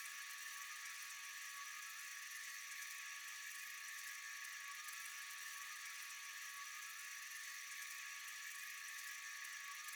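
Steady, high-pitched chorus of night insects, an unbroken shrill buzz.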